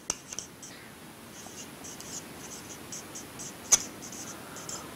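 A dry-erase marker squeaks in short strokes on a whiteboard as a word is written, with one sharp tap about three and a half seconds in.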